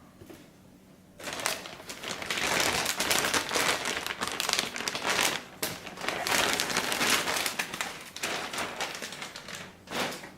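Plastic packaging crinkling and rustling as a car head unit is unwrapped, starting about a second in and going on in uneven bursts.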